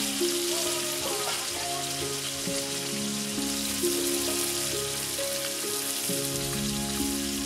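Turmeric-coated pieces of carp sizzling steadily as they fry in oil in a steel wok over a wood fire. Background music with held notes that change every second or so plays over it.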